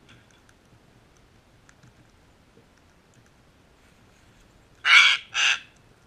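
Sulphur-crested cockatoo giving two loud, harsh screeches in quick succession near the end.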